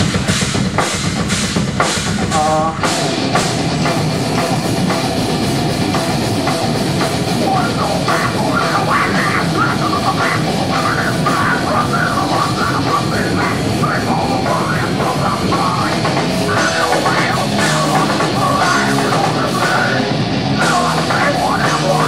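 Heavy metal band playing live, with distorted electric guitars, bass guitar and a drum kit.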